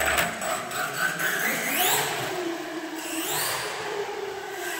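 Electric RC car's motor whining and rising in pitch twice as the car accelerates away over a smooth floor, with a steady hiss of tyre noise.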